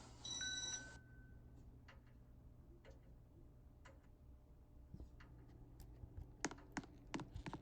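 Faint steady hum with a short beep right at the start. Then faint ticks about once a second, and a quick run of louder clicks near the end.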